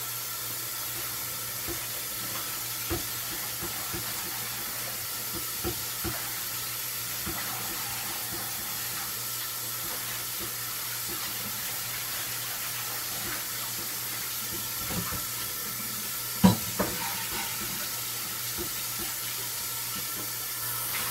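Steady hiss of running water, with scattered light clinks and knocks and one sharper knock about sixteen seconds in.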